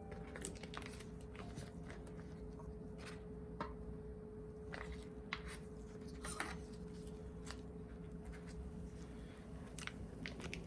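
Faint steady hum with a single held tone, with scattered light clicks and taps.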